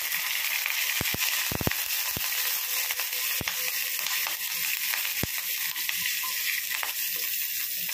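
Phodni of green chillies, garlic and curry leaves sizzling in hot oil with mustard seeds and cumin, stirred with a wooden spatula. A steady sizzle with a few sharp clicks in the first half.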